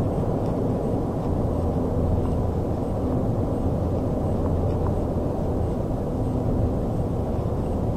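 Steady road and engine noise heard inside the cabin of a car moving at speed: an even low rumble with no changes.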